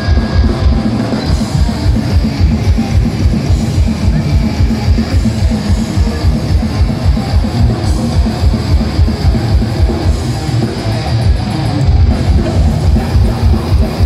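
Live thrash metal band playing loudly: distorted electric guitars and bass guitar over fast, even drumming with a driving bass-drum pulse, heard through the PA from the crowd.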